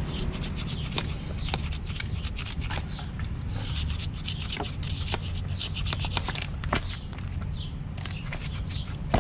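Edge of a metal multi-tool plate scraping down a wooden stick, shaving off thin curls to use as fire tinder: a quick, irregular run of short, raspy strokes, several a second.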